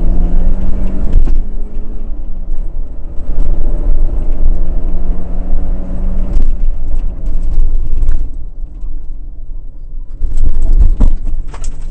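Rally car engine heard from inside the cabin, pulling hard with short breaks and rising pitch between gear changes. It eases off about eight seconds in, followed by a burst of sharp knocks and clatter near the end.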